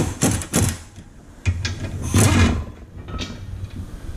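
Metal clanks and rattling of a socket on an extension worked against the nut and stud of a new lower ball joint, the nut being brought onto its threads. A quick run of sharp knocks at the start, a longer rattle around the middle, and one more knock later.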